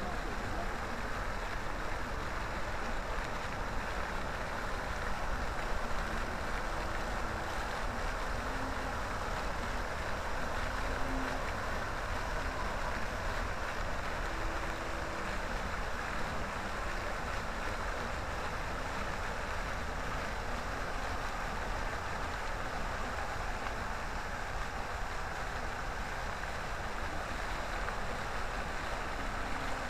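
Many vertical jets of a park fountain falling back into the basin: a steady rush of splashing water, with a low rumble underneath.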